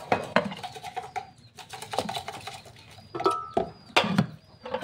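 Chickens clucking close by, mixed with a run of sharp knocks and clatters as ice goes into a plastic blender jar.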